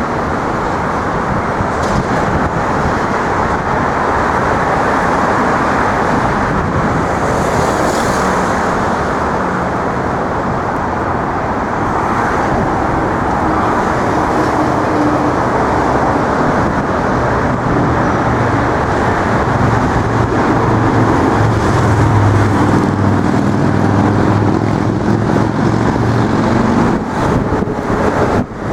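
Steady wash of road traffic noise, with a low engine hum coming in about two-thirds of the way through.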